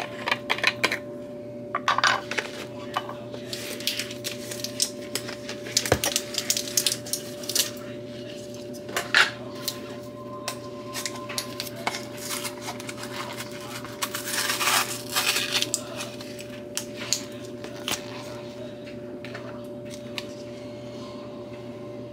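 Small hard objects being handled, with scattered light clicks and clatters and short rustling bursts, over a steady hum.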